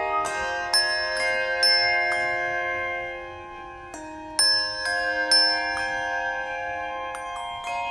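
A handbell choir playing: handbells struck one after another in short runs, each note ringing on and overlapping the others into sustained chords. The ringing fades a little past the middle, then a new run of strikes comes in.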